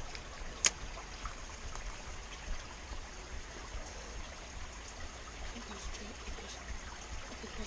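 Stream water running steadily, with one sharp click less than a second in.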